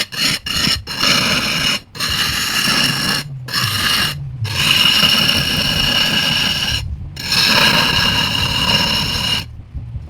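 A turning tool cutting wood on a spinning lathe, making a steady scraping whine. It breaks off abruptly several times and stops near the end.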